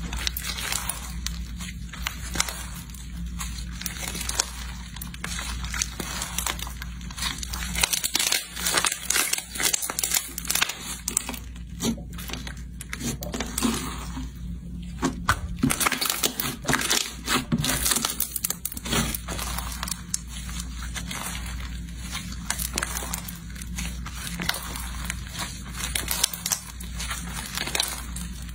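White foam-bead (crunchy) slime with fruit slices being stretched, pressed and squeezed by hand, the foam beads crackling and crinkling in dense rapid clicks. A steady low hum runs underneath.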